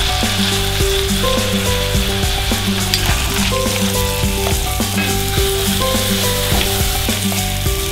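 Sliced carrots and onions sizzling in oil in a pot, with a spoon stirring and scraping through them. Background music with sustained notes that change every half second or so plays underneath.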